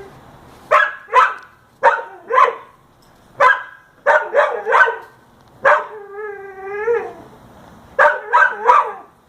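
A dog barking in quick clusters, about a dozen sharp barks. Past the middle there is one drawn-out, wavering howl about a second long.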